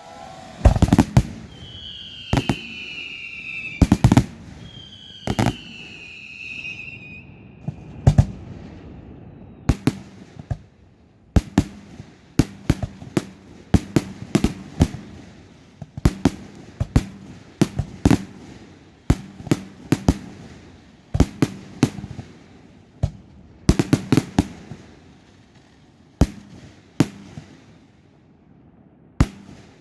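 Fireworks display: a long string of sharp bangs from bursting shells, coming thick and fast in the middle stretch. In the first few seconds, two whistling fireworks each give a falling whistle of about two seconds among the bangs.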